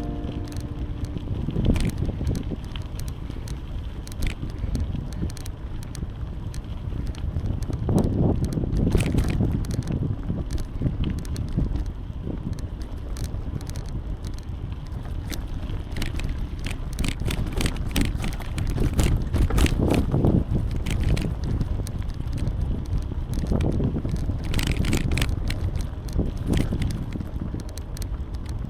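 Bicycle being ridden: tyres rolling over the path under wind buffeting the microphone, with many small clicks and crackles throughout.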